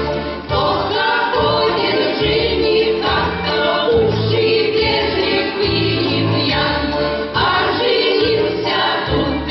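A folk ensemble's choir singing a song over an instrumental accompaniment, with a bass line that pulses in a steady rhythm.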